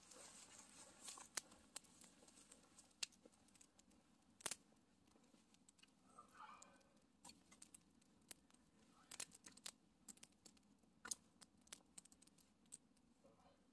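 Campfire of dry sticks burning, crackling quietly with sharp, irregular pops.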